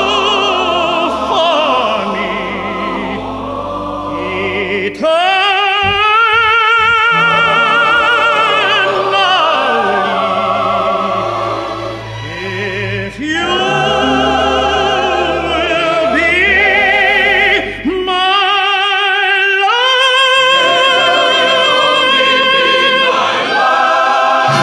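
Operatic singing with orchestral accompaniment: a solo voice holds long notes with wide vibrato, in phrases with short breaks between them.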